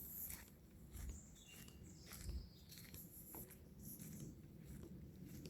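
Faint outdoor bush ambience with a few soft bird chirps and scattered footsteps on a walking track.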